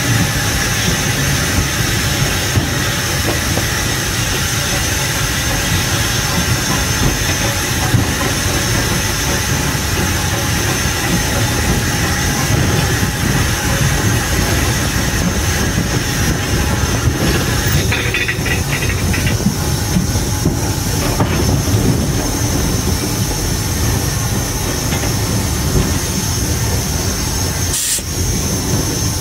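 Steam locomotive heard from its own footplate: a steady hiss of steam over a continuous low rumble.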